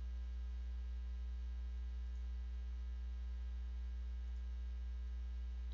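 Steady low electrical hum with faint higher overtones, unchanging throughout; a background hum on the recording.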